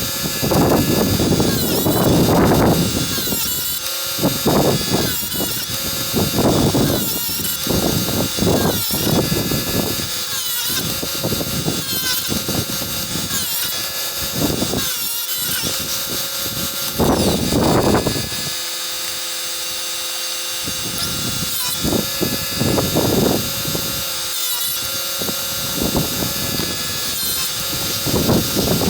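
Chicago Electric electric chainsaw-chain sharpener running with a steady whine from its grinding wheel. The wheel is pulled down onto the chain teeth in repeated grinding strokes every second or two, with a short pause about two-thirds of the way through.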